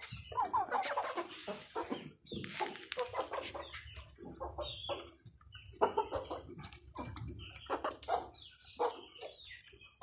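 Aseel chickens clucking, a quick run of short calls one after another.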